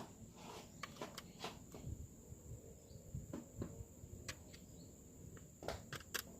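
Faint, scattered light clicks and taps of small parts being handled, a few sharper taps near the end, over a faint steady high whine.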